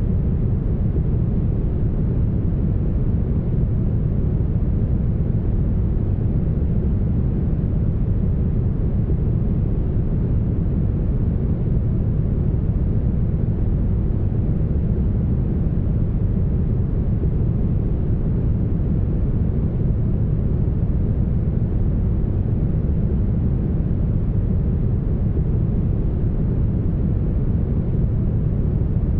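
Steady, smoothed brown noise: an even, deep hiss with most of its weight in the bass and very little treble, unchanging throughout.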